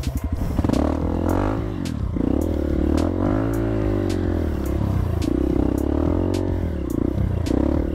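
Dirt bike engine revving up and down again and again, its pitch rising and falling every second or so, with scattered sharp clicks and clatter.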